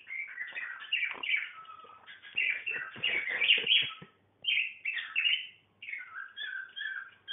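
Pet budgie chirping and chattering in quick, busy runs, breaking off briefly about four seconds in. Near the end a short two-note chirp repeats about twice a second.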